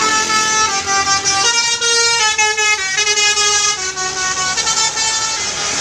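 Tour bus's basuri telolet horn playing a melody: a string of loud, sustained horn notes that step up and down in pitch, several tones sounding at once, ending near the close.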